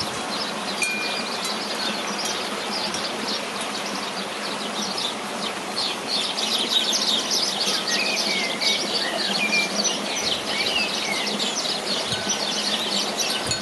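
A chorus of many small birds chirping and calling together, with a few clear whistled notes among the chirps; the chirping grows denser from about halfway.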